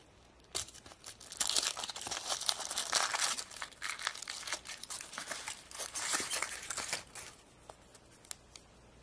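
Foil wrapper of a chocolate surprise egg crinkling and tearing as it is peeled off by hand, followed by a few light clicks near the end.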